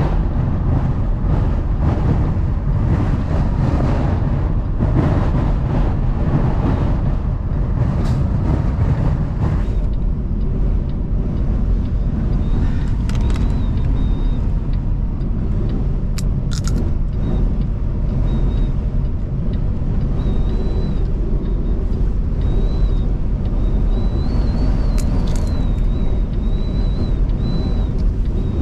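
A semi-truck's diesel engine and road rumble heard from inside the cab while a strong wind buffets the truck, the gusts heaviest in the first ten seconds. A faint, wavering high whistle comes in about midway, with a few scattered clicks.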